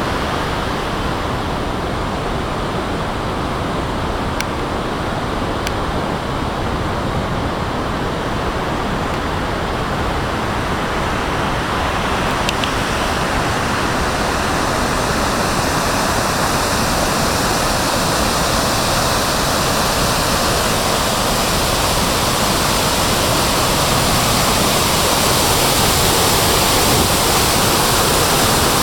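Large waterfall: a loud, steady rush of falling water that grows gradually louder toward the end.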